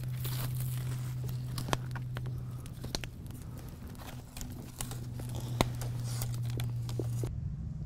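Wood campfire crackling, with several sharp separate pops over a steady low hum.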